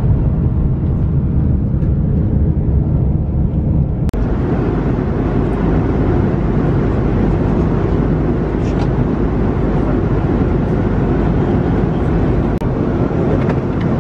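Airliner cabin noise: the loud, steady drone of the jet engines and rushing air inside the passenger cabin. It drops out briefly about four seconds in and comes back with more hiss.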